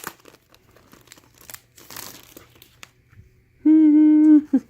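Packaging crinkling and tearing faintly as a packet of craft pieces is opened. About three and a half seconds in, a woman's voice holds one loud, level note, like a drawn-out "ooh".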